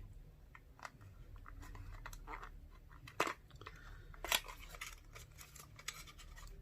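Scattered small clicks and taps of a mascara tube and its packaging being handled and opened, a dozen or so irregular ticks, the loudest about three and four seconds in.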